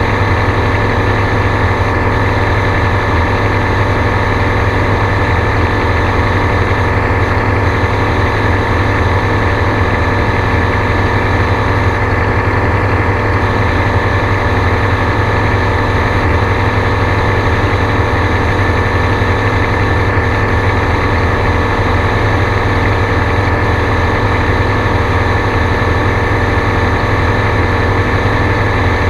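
Gyrocopter's engine and propeller running in flight, a loud, even drone that holds the same pitch throughout.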